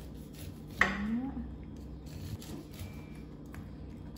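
A kitchen knife scraping and cutting kernels off an ear of sweet corn onto a ceramic plate in short, light strokes. A sharp knock comes about a second in, followed by a brief voice-like sound rising in pitch.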